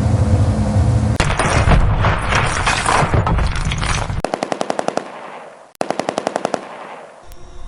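Machine-gun fire sound effect: after the tail of a low engine drone, a dense clatter of fire for about three seconds, then two short bursts of evenly spaced shots at about ten rounds a second, the second starting after a brief pause.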